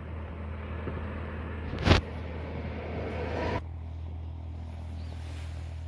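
Car engine idling with a steady low hum, heard from inside the cabin. A single sharp knock about two seconds in, and a background hiss that cuts off suddenly about three and a half seconds in.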